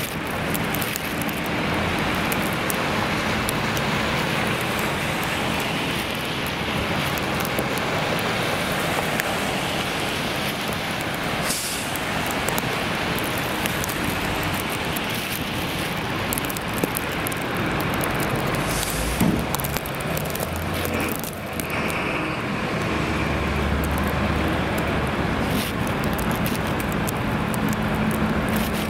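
Steady city traffic on a wet street: tyres hissing on wet pavement and the engines of passing cars, vans and a box truck.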